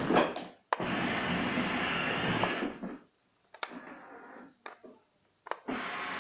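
Electronic sound effects from a child's ride-on toy car's built-in speaker, in separate bursts that each start sharply with a click and stop abruptly. One burst runs from about a second in to about three seconds, a quieter one follows around four seconds, and another starts near the end.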